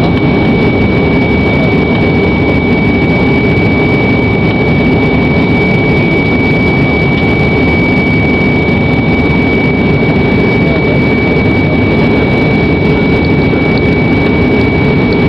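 Airbus A321 airliner's jet engines heard from inside the passenger cabin: a loud, steady rush of noise with a constant high-pitched whine over it.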